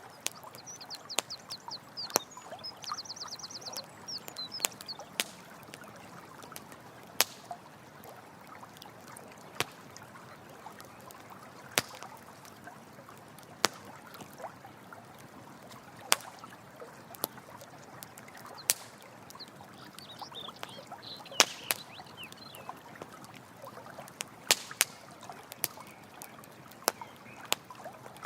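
Campfire crackling with irregular sharp pops over steadily running stream water. A rapid high trill about a second in and a few high chirps near the 20-second mark come from small animals calling.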